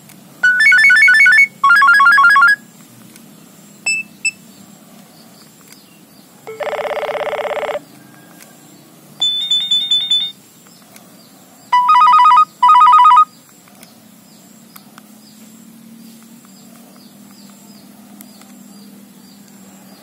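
Nokia 6220 mobile phone playing its built-in alert tones one after another from the tone list: short electronic beeping trills and buzzes of about a second each, with pauses between them. The last one ends about 13 seconds in, leaving a low steady outdoor background.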